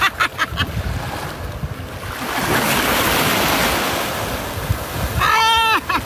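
Small surf waves breaking and washing up a sandy shoreline, with wind on the microphone; the wash swells up about halfway through. A short, high-pitched cry from a woman near the end.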